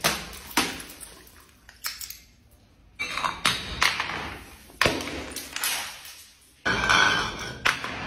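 Glass bottles tumbling down granite stairs, clinking and knocking on the stone steps in quick runs of impacts, with a short pause partway through. About two-thirds of the way in comes a loud crash of breaking glass lasting about a second.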